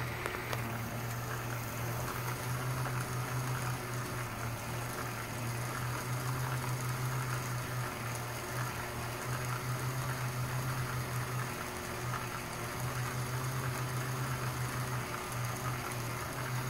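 Atlas HO model railroad turntable's electric motor running, a steady low hum with a slight rise and fall as the bridge slowly rotates a locomotive.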